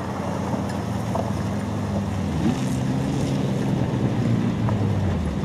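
Off-road 4x4 engine running steadily at low revs, with a brief rise in pitch about two and a half seconds in.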